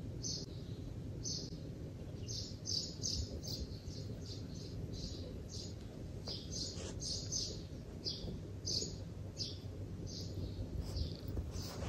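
Small birds chirping: short, high chirps about two or three a second, irregular, over a low steady background rumble.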